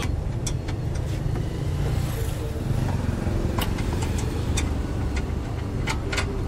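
Scattered sharp metal clicks as a car horn's mounting bracket and bolt are worked into place behind the front bumper, over a steady low rumble.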